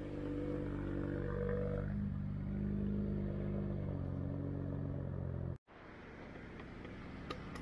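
BMW 1 Series coupé engine running at low speed as the car rolls past, its note shifting in pitch a couple of times. It breaks off abruptly about five and a half seconds in, and a quieter car sound builds after it.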